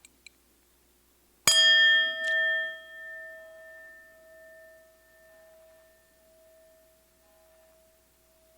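A brass singing bowl struck once, ringing on in a long fading tone with a slow, wavering pulse in its loudness.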